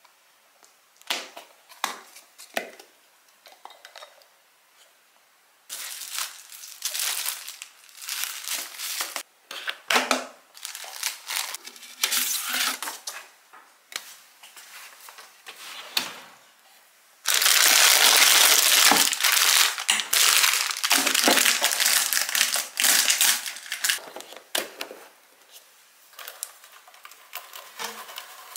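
Plastic packaging crinkling and rustling as it is handled and unwrapped. It starts with a few separate clicks, then a run of dense crackling that is loudest for several seconds in the middle before tailing off.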